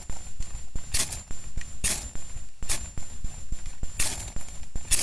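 Ferro rod scraped hard with a striker over a tinder bundle, about five short, sharp scrapes a little under a second apart, throwing sparks to light damp tinder.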